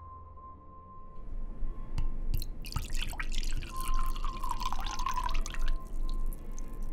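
Red wine being poured from a bottle into a glass tumbler, splashing and glugging for about three seconds. A sharp click comes just before the pour.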